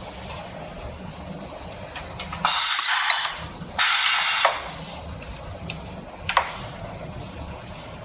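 Pneumatic crimper cycling to crimp a fiber-optic connector's hex crimp sleeve over the cable's Kevlar. Two loud blasts of compressed-air hiss come about a second apart, the first about two and a half seconds in. A couple of sharp clicks follow.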